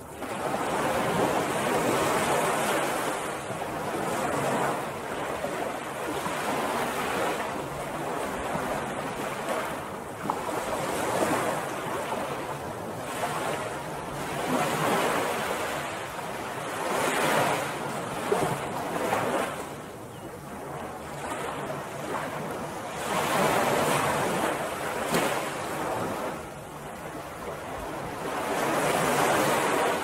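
Ocean surf breaking and washing up a beach: a continuous rushing that swells and eases every few seconds.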